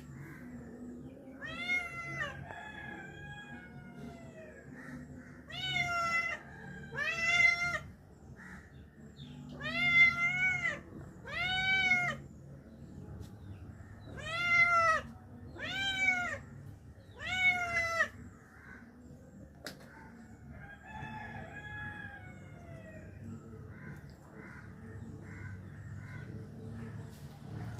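Cat meowing repeatedly: about eight loud, high, rising-then-falling meows spaced a second or a few seconds apart, then a few fainter ones later on.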